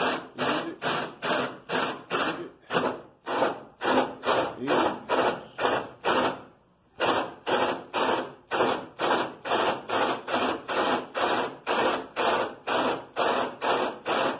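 Hole saw on a cordless drill cutting through a car hood, a rasping scrape about three times a second with a short pause about six seconds in.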